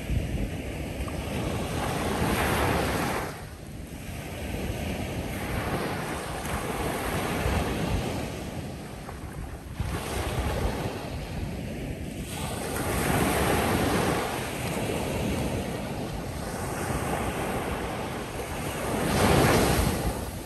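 Ocean waves breaking on a sandy beach shoreline, each surge of surf swelling and washing back every five or six seconds, the last one the loudest. Wind rumbles on the microphone underneath.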